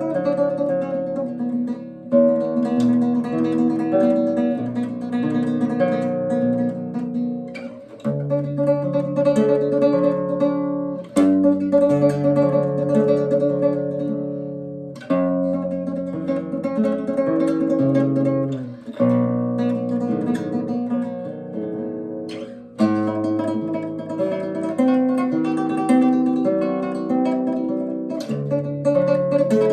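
Nylon-string guitar played in five-note flamenco tremolo, a bass note under rapidly repeated treble notes, moving to a new chord every three to four seconds.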